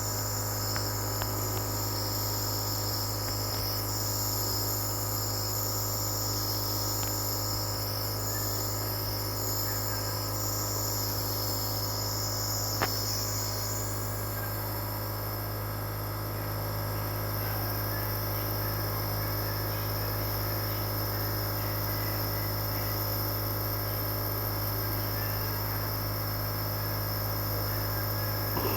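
Compressor nebulizer running: a steady low hum with an even high-pitched hiss over it, and one faint click about halfway through.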